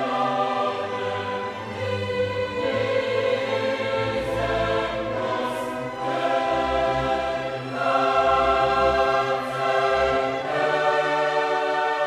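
Background music: a choir singing held chords over an orchestra, changing chord every few seconds.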